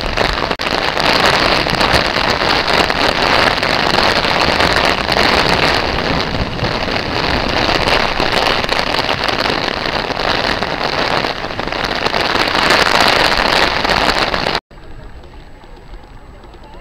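Heavy thunderstorm downpour as a loud, steady hiss of rain pelting the pavement. It cuts off abruptly near the end, leaving a much quieter background.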